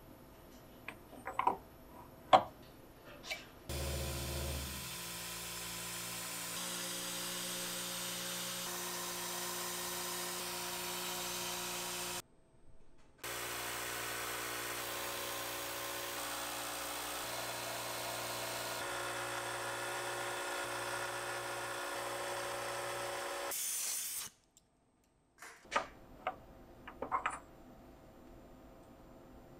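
CNC milling machine spindle running while a milling cutter machines an aluminium block: a steady whine with several held tones and cutting hiss, edited in sections that cut off abruptly about twelve seconds in and again near the end. Before and after it, sharp clicks and knocks of aluminium blocks being handled against the steel vise.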